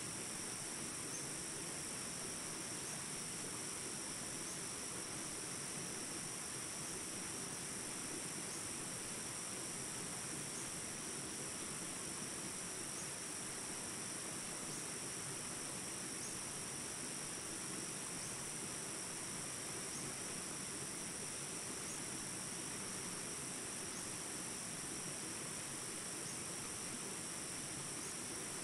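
Steady, unbroken insect chorus, a high shrill trill over a faint hiss of outdoor ambience.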